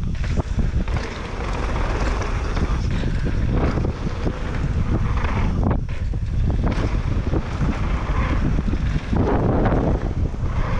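Wind rushing over the microphone of a Transition TR11 mountain bike riding down a dirt freeride trail. There is a steady low rumble from the tyres, with the bike rattling and ticking over the bumps.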